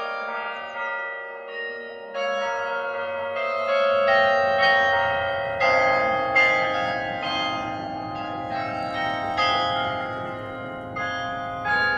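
Carillon bells played by hand from the keyboard: a melody of struck bell notes, often several at once, each ringing on into the next, fuller and louder from about four seconds in.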